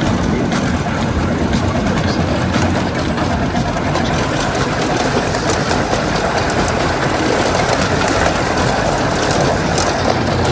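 Ride-on train running along its track, heard from aboard: a steady rumble of wheels on rail with rapid clicking and rattling.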